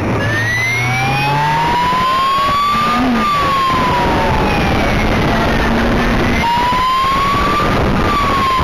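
Police motorcycle's wail siren, its pitch slowly rising and falling twice, over the motorcycle's engine running and road noise at speed.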